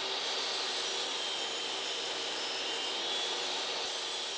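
Table saw running steadily, its motor and spinning blade giving an even whine.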